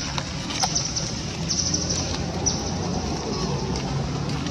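Outdoor background noise: a steady low rumble under a band of high hiss, with a few short high chirps, one a quick falling squeak about two and a half seconds in.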